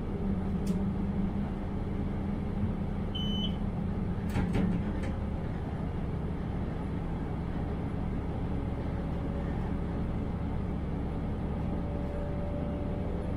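Diesel railcar running along the track, heard from the driver's cab: a steady low rumble of engine and wheels on rail. A few sharp clicks come about four to five seconds in, and a brief high beep a little after three seconds.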